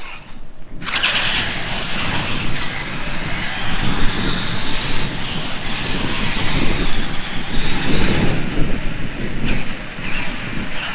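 Radio-controlled monster truck driving on concrete: a high motor whine that rises and falls as it speeds up and slows, over a steady low rumble.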